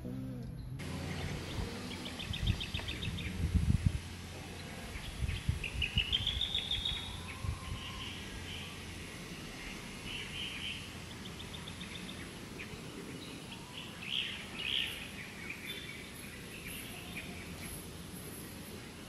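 Birds chirping and trilling, picked up by the Sony ZV-E10's built-in microphone with no windscreen fitted. Wind buffets the bare microphone in low gusts, loudest in the first half.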